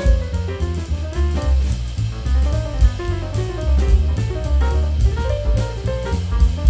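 Jazz music with drum kit, walking bass and a melodic lead.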